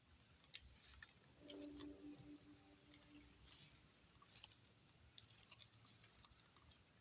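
Near silence with faint scattered clicks and ticks, and a brief low hum with a few overtones from about a second and a half in to about three seconds in.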